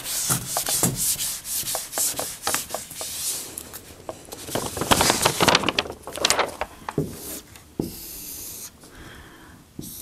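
Whiteboard being wiped with an eraser in rapid back-and-forth scrubbing strokes. In the last couple of seconds come quieter, smoother strokes of a dry-erase marker drawing lines on the board.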